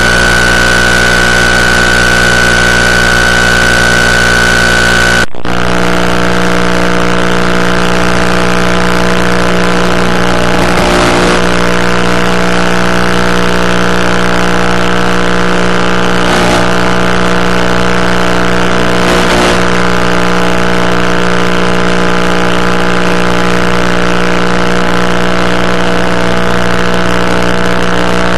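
Electric motor and propeller of an FPV model plane in flight, heard through the onboard camera's microphone as a loud, steady drone. A high steady tone sits on top for the first five seconds and ends with a brief dropout.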